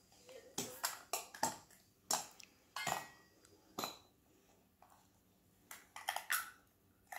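About ten light, sharp clicks and knocks of small hard objects, irregularly spaced, with a quiet stretch of a second or so in the middle.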